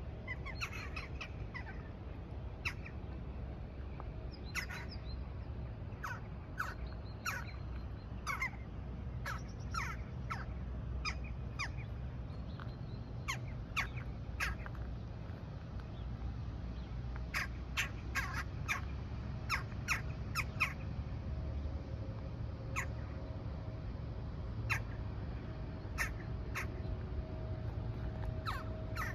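Crow-family birds calling with short, harsh calls, irregularly spaced and sometimes several in quick succession, over a steady low background rumble.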